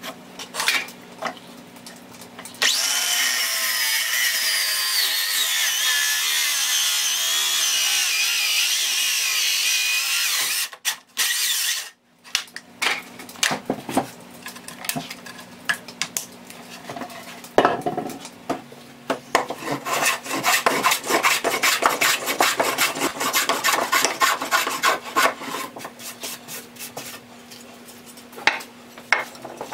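Power saw cutting through a board for about eight seconds, its pitch sagging and wavering under load. Later comes a quick run of rapid scraping strokes on wood, with a few knocks in between.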